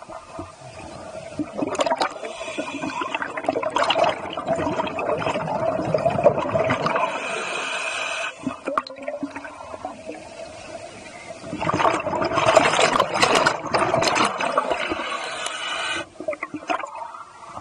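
A scuba diver's exhaled air bubbling out of the regulator underwater, in two long gurgling rushes, the first starting about a second and a half in and the second starting a little after the middle. A faint steady hum runs underneath.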